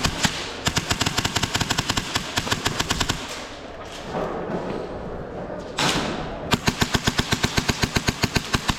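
Airsoft gun firing rapid strings of shots, about nine a second, in two long bursts: one from about half a second in to three seconds, and another from about six and a half seconds on.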